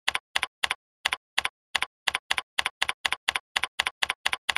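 Computer keyboard typing: sharp, evenly spaced key clicks, about four a second, with dead silence between them.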